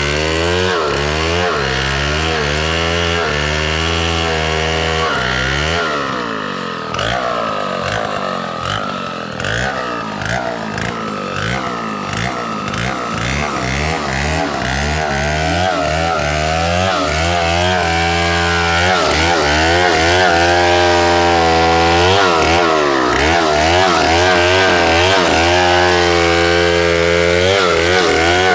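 Stihl MS070 two-stroke chainsaw ripping lengthwise through a coconut log. The engine runs loud under load, its pitch wavering up and down as the chain bites, and is more unsteady and slightly quieter for a stretch in the middle.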